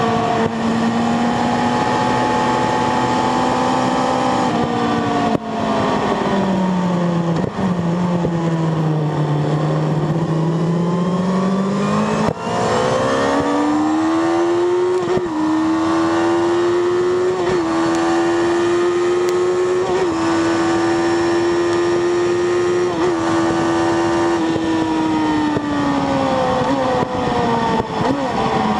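Sport motorcycle's engine heard from onboard at track speed. Its pitch falls for a few seconds about six seconds in, climbs again from about ten seconds, holds high with brief dips, and drops again near the end, over a steady rush of wind.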